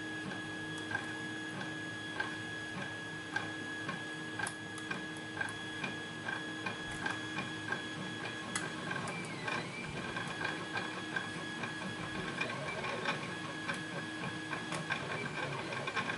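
Lock pick working the pins of a pin-tumbler lock under tension: small metallic ticks and scraping, roughly one every half second to second, over a steady faint hum.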